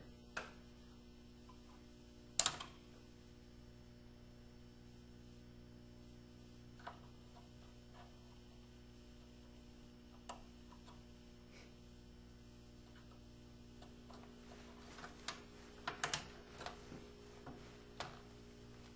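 Scattered clicks and light knocks of a RAM module being handled and pushed into a motherboard DIMM slot: one sharp click a couple of seconds in and a cluster of clicks near the end, over a faint steady hum.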